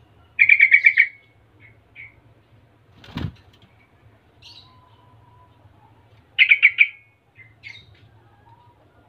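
Caged yellow-vented bulbul (trucukan) singing two short, loud bubbling phrases of rapid notes about six seconds apart, with a few softer short calls between them. A single dull knock about three seconds in, over a steady low hum.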